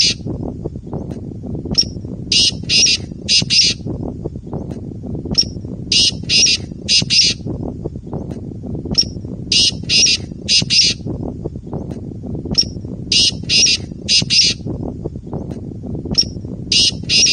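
Male black francolin calling over and over. Each phrase is a short opening note followed by three harsh, grating notes, repeated about every three and a half seconds, with a steady low rumble underneath.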